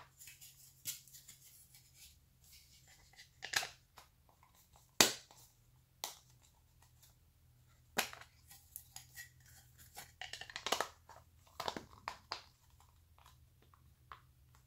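Small plastic storage case of a diamond grinding bit set handled and its clear plastic lid fitted on: irregular clicks, taps and rustles, with the sharpest click about five seconds in and a flurry of clicking about ten seconds in.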